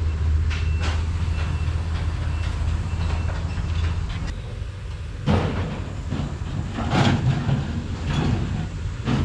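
A vehicle engine running with a steady low hum that cuts off about four seconds in, followed by several loud knocks and rattles.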